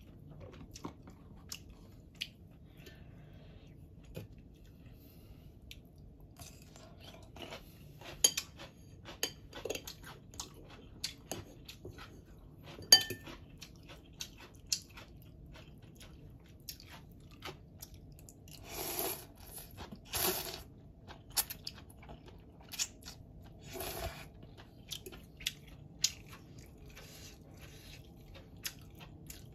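Eating instant noodle soup close to the microphone: a metal spoon and fork clicking against a ceramic bowl, with chewing and a few longer slurps near the middle.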